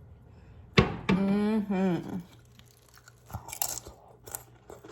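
A sharp click, then a hummed "mmm" lasting about a second, followed in the second half by crunching and chewing of crisp chips.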